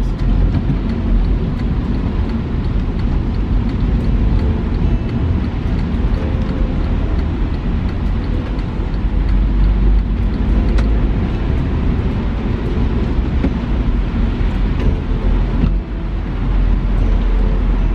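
Steady road noise inside a Honda New Civic driving on a rain-soaked street: a continuous low rumble of tyres and engine.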